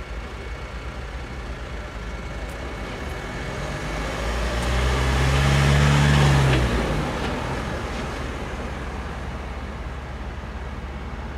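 Fire service pickup truck driving past: its engine and tyre noise build up, peak about six seconds in, then fade as it pulls away.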